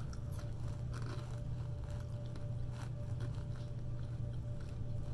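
A person chewing food quietly, with a few soft, short clicks of eating over a steady low hum.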